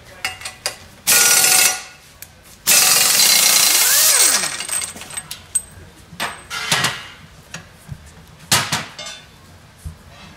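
Pneumatic impact wrench fitting a propeller onto a mud motor's drive. It runs in two loud bursts, the first under a second and the second about a second and a half, which winds down with a falling pitch. Several sharp metal knocks and clanks follow.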